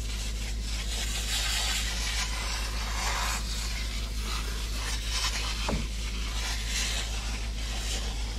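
Aerosol can of coil cleaner hissing as it sprays onto an indoor evaporator coil in two long bursts, soaking the coil. A steady low hum runs underneath.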